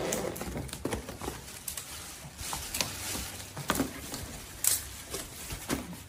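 Cardboard box and its packing being handled and opened: irregular rustling, taps and scrapes, with a sharp one about every second and the loudest about three-quarters through.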